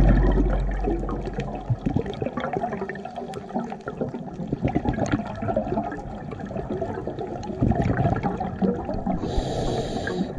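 Underwater sound from a scuba dive: a diver's regulator bubbling and gurgling on the exhale, over a dense crackle of clicks. A short hiss of breath through the regulator comes near the end, and music fades out during the first two seconds.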